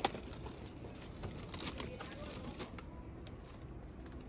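Faint rustling and scattered small clicks of jujube fruits being picked off the tree by hand, with one sharp click right at the start.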